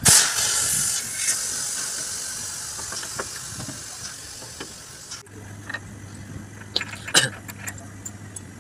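Compressed air hissing out of the truck's lift-axle air suspension, starting suddenly and fading over about five seconds as the pressure drops. After that, a steady low hum with a few sharp metallic clicks and knocks, the loudest about seven seconds in.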